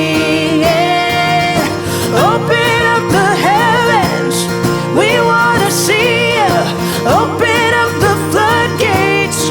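Acoustic guitar accompanying singing voices that hold and bend long, wavering notes in a worship song.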